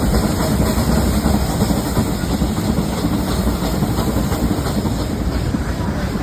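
Nilgiri Mountain Railway train running on its metre-gauge track: a steady, heavy low noise of the carriage and wheels in motion.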